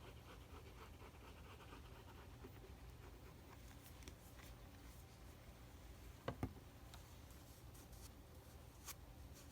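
Faint rubbing and handling of paper on a craft notebook, with two soft taps about six seconds in, over a low steady hum.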